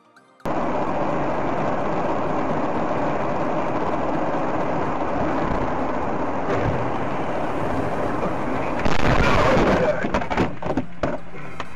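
Dashcam recording from inside a moving car: steady road and engine noise. About nine seconds in it turns louder, with a run of sharp knocks and crunches of a crash.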